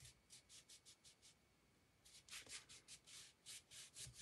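Fingertips rubbing quickly back and forth over cardstock, faint, about six short strokes a second, pressing a freshly glued flap down flush along the fold so it sticks. The rubbing stops for under a second about a second in, then resumes a little louder.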